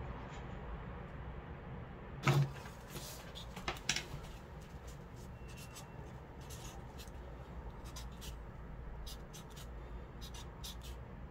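A thump and a couple of sharp clicks about two to four seconds in, then short scratchy strokes of a felt-tip marker writing on cardboard, over a low steady hum.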